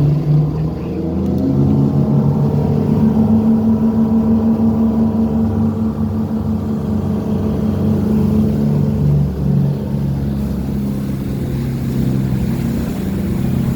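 Motorboat engine running under way, its pitch stepping up about a second and a half in and then holding steady.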